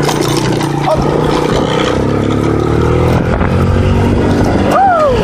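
ATV (four-wheeler) engine running while riding, its pitch rising as it speeds up about two seconds in.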